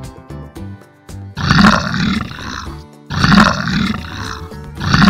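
Lion roaring three times, each roar lasting about a second and a half, the first coming about a second and a half in and the last near the end. Light children's background music plays under and before the roars.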